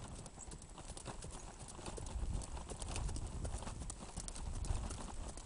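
A paint horse walking on a wet, muddy dirt track: a steady run of hoofbeats.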